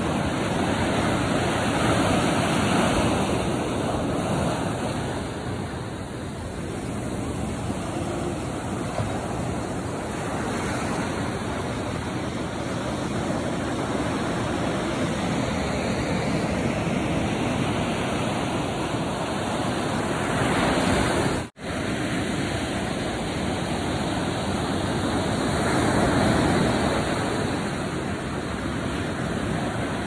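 Pacific surf breaking and washing up over sand: a steady hiss of water that swells and eases as each wave comes in and draws back. The sound cuts out for an instant about two-thirds of the way through.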